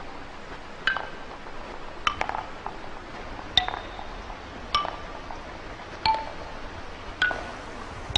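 Wooden ball knocking against tuned wooden pieces: single clear wooden notes, each at a different pitch, about one every second and a quarter.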